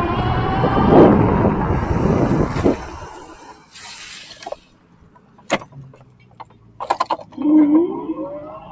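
Electric bike motor whining and rising in pitch as it accelerates, over rushing wind and road noise, then easing off about three seconds in. A few sharp clicks follow, and the whine rises again briefly near the end.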